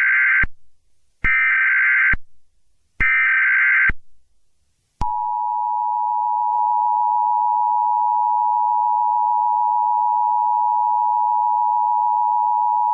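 Emergency Alert System tones: three roughly one-second bursts of SAME header data, a harsh digital warble, about a second apart. About five seconds in, the steady two-tone EAS attention signal begins and holds on.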